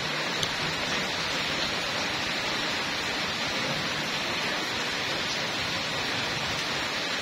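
A steady, even hiss of noise that holds at one level throughout, with no distinct events in it.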